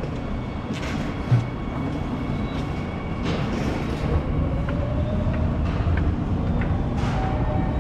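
Subway station escalator running: a steady low mechanical rumble, with a few light knocks and one loud thump about a second and a half in.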